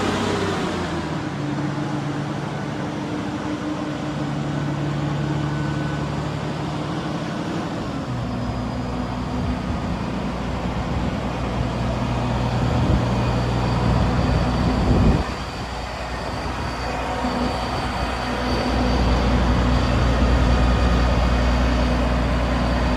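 Combine harvester's engine running, its revs falling in the first second and then holding steady. The running note shifts about a third of the way in, a brief sharp noise comes a little past halfway, and the engine grows louder again near the end.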